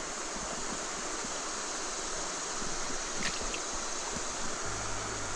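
Trout stream running: a steady rush of flowing water.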